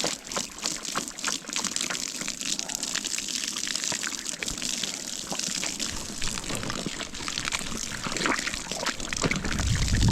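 Water splashing and trickling as a horse drinks, with small splashes and clicks throughout.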